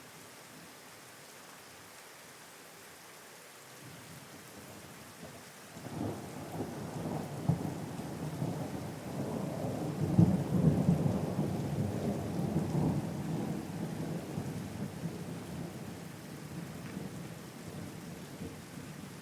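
Steady rain with a roll of thunder that breaks in suddenly about six seconds in, swells to its loudest around ten seconds, then rumbles away slowly.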